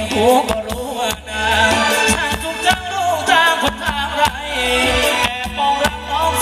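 Live band playing Thai ramwong dance music: a singer's wavering vocal line over keyboard and a steady drum beat.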